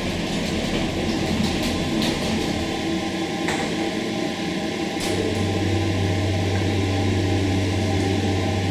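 Schindler hydraulic elevator running: a few sharp clicks, then about five seconds in a steady low hum sets in and holds.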